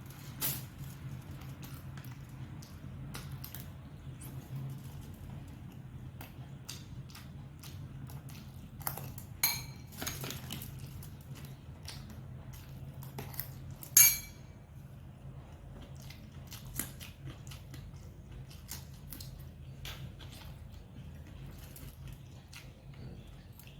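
Mukbang eating sounds: chewing and scattered small clicks, with a few ringing clinks of a utensil against a dish, the loudest about fourteen seconds in. A steady low hum sits underneath.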